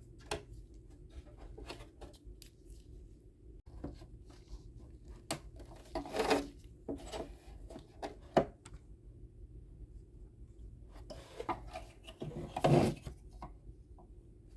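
Parts being handled and scraped during a teardown, heard as scattered clicks and knocks and two longer rubbing scrapes, one about six seconds in and one near the end.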